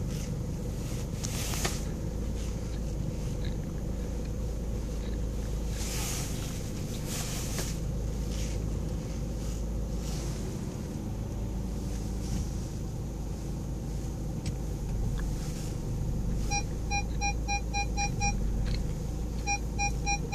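Cabin sound of a VW Caddy 2.0 TDI four-cylinder turbodiesel idling with a low steady rumble while park assist steers the car, with a few brief scuffing noises in the first eight seconds. About sixteen seconds in, the parking sensor warning starts beeping rapidly, about four to five beeps a second, pauses briefly and starts again near the end: an obstacle is close behind or ahead.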